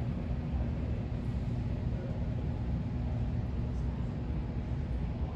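Kubota KX033-4 compact excavator's diesel engine running steadily, a constant low rumble with a steady hum.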